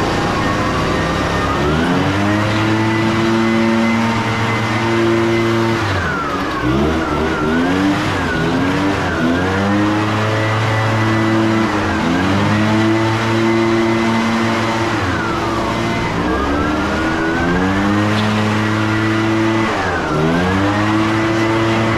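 Handheld leaf blower running loud and steady, its motor speed dropping and picking back up several times.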